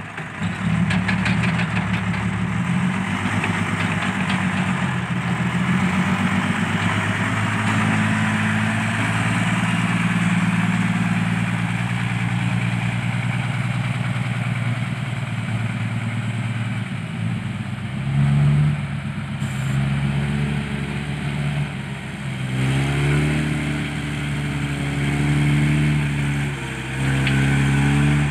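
Diesel dump truck engine working hard through loose sand, running steadily under load, then revving up and down several times in the last third.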